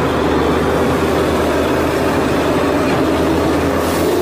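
Heavy truck engine running steadily at idle, a sound effect laid over the footage; the plastic toy truck is not what makes it.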